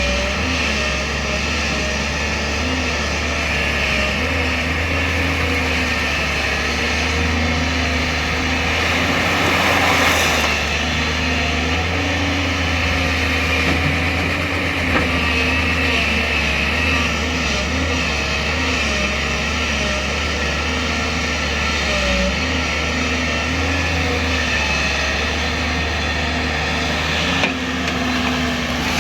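JCB 205 excavator's diesel engine running steadily as the machine works, briefly louder about ten seconds in.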